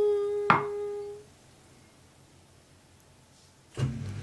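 A steady humming tone fades out about a second in. About half a second in, a single sharp knock, fitting a glass mug set down on a wooden cutting board. A lower hum starts near the end.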